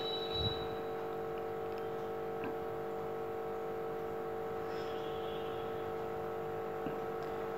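A steady hum with several pitches, with a few faint clinks of a steel spoon stirring in a small bowl.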